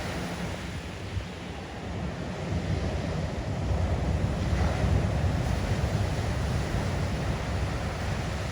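Heavy ocean surf breaking and washing in, with wind buffeting the microphone; the wash swells louder about four to five seconds in.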